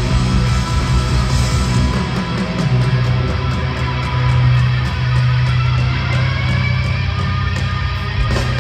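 Live rock band playing an instrumental passage with no vocals: electric guitar over a steady low note that is held from about three seconds in.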